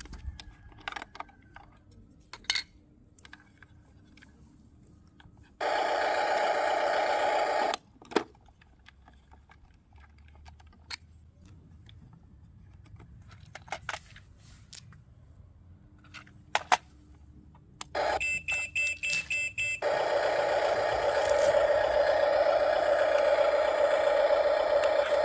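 Huina 1572 RC crane being handled, with scattered plastic clicks and knocks. Its motors whir steadily for about two seconds, then a quick run of beeps sounds before the motor whir starts again and keeps going.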